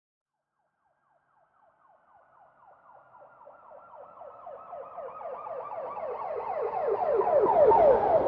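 Police car siren in a fast, rapidly repeating yelp, fading in out of silence and growing steadily louder as the car approaches. It is loudest near the end as it goes by, with a low rumble from the vehicle under it.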